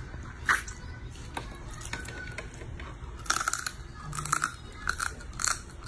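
Crab shell cracking and crunching between the teeth as the legs are bitten open, with chewing. The sharp cracks come singly at first, then several close together from about three seconds in.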